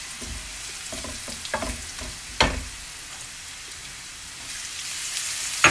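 Onion and spice masala sizzling in hot oil in a wok, stirred with a wooden spatula that knocks and scrapes against the pan a few times.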